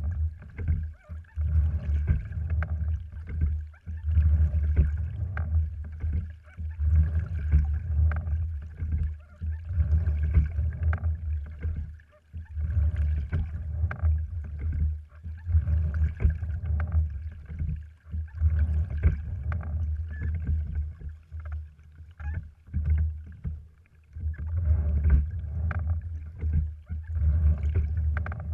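A sliding-seat rowing wherry under way: a low rush of water along the hull that swells and fades with each stroke, with oar splashes and short knocks from the oars and rigging in a steady repeating rhythm.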